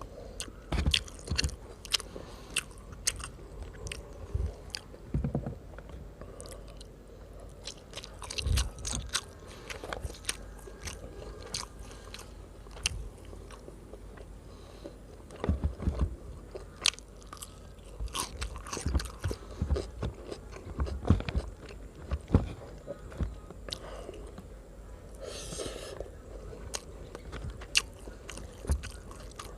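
Close-miked eating sounds of roasted chicken rice: irregular biting, chewing and crunching with wet mouth clicks, and a brief rustle about 25 seconds in.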